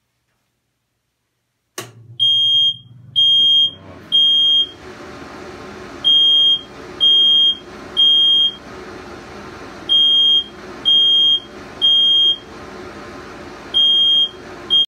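Smoke alarm beeping in the temporal-three pattern: loud high-pitched beeps in threes, about a second apart, with a pause between each group, coming in suddenly about two seconds in. Underneath runs the steady whir of the basement exhaust fan that the alarm switches on. The alarm has detected smoke from a smoke test of a LiPo battery charging box.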